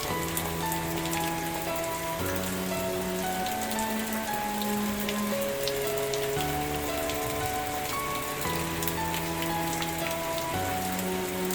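Steady rain falling, with scattered sharp drop ticks, over soft background music of held chords that change about every two seconds.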